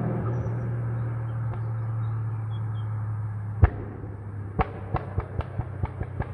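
Subaru WRX STI's turbocharged 2.5-litre flat-four running out of sight, its drone fading, then exhaust popping on overrun ('popcorn'): one loud crack about three and a half seconds in, then a string of sharper pops near the end, a few a second.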